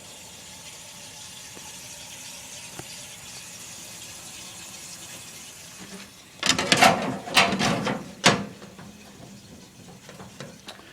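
A faint steady hiss, then, about six and a half seconds in, two seconds of sharp clattering and clicks as the dehumidifier's power cord and molded plug are handled.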